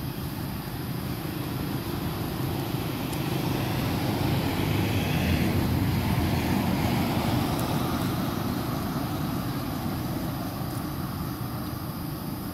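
A motor vehicle passing by: a low rumble that swells smoothly to a peak about five or six seconds in, then fades.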